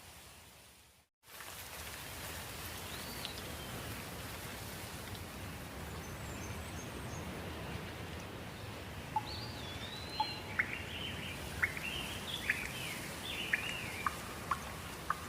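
Steady rain falling, a continuous hiss that cuts out completely for a moment about a second in. Birds call over the rain, a few thin whistled notes at first, then a busy run of short, sharp chirps through the second half.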